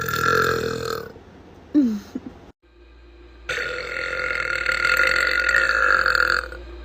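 A woman burping deeply on purpose: one burp ends about a second in, and after a brief break a second, longer burp holds at a steady pitch for about three seconds.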